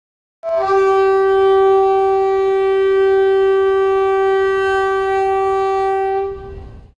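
A single long horn-like note held at one steady pitch, starting about half a second in and fading out near the end.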